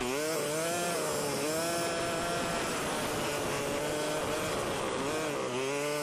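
ATV engine running while the machine drives along, a steady drone whose pitch sinks and rises as the throttle changes.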